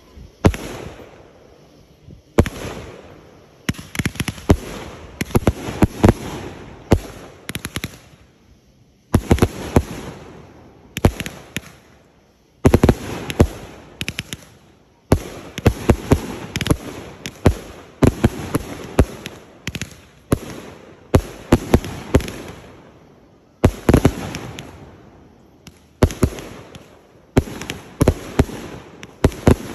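Backyard aerial fireworks going off in quick volleys: sharp launch bangs and bursts, often several a second, with brief lulls between the volleys.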